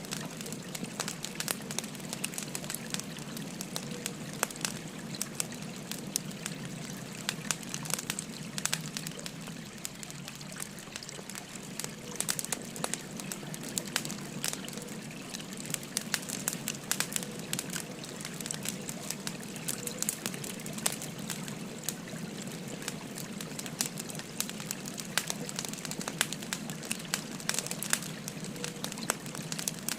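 Burning firewood crackling with frequent sharp pops and snaps, over the steady babble of a flowing stream.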